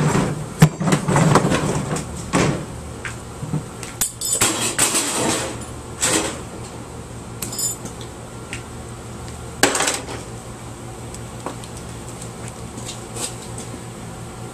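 Hard plastic vacuum cleaner parts and hand tools clattering and knocking as a small vacuum is taken apart by hand: a run of knocks and rattles in the first couple of seconds, more around four to six seconds and a sharp knock near ten seconds, then quieter handling.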